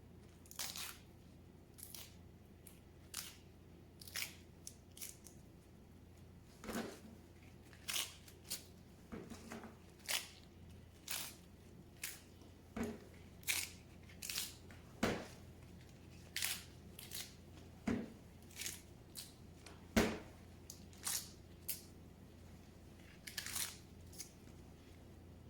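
Chef's knife cutting through crisp fresh Swiss chard on a cutting board: sharp crunchy cuts, roughly one a second and unevenly spaced, several ending in a knock of the blade on the board.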